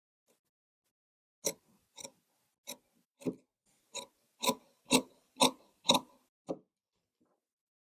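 A run of about eleven sharp clicks, roughly two a second, from a tailor's tools at work. They get louder toward the middle and then stop.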